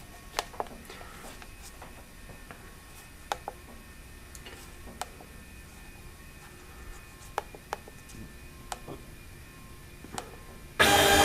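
Faint scattered clicks, then near the end a loud, steady hiss with a buzzing tone starts suddenly: the CNC plasma cutter's torch firing up.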